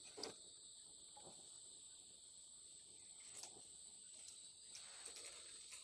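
Faint steady insect chirring, like crickets, with a few small clicks.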